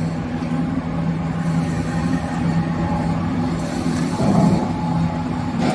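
Screw oil press running with a steady mechanical hum, a low drone with even overtones, and a brief louder noise about four seconds in.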